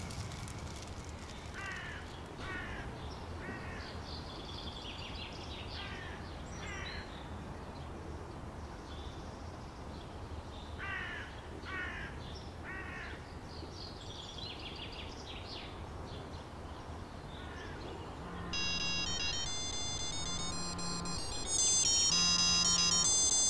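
Birds calling now and then in short descending notes over a steady low background hum. About eighteen seconds in, a smartphone ringtone starts playing a repeating electronic melody, which gets louder a few seconds later for an incoming call.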